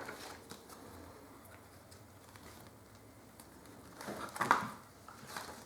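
Mostly quiet, then a short burst of paper rustling about four seconds in and a lighter one near the end, as the pages of a small printed user manual are handled and turned.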